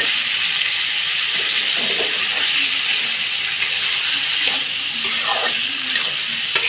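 Diced potatoes sizzling in hot oil as they are stirred with a metal spatula, a steady frying hiss with occasional light clicks of the spatula against the pan.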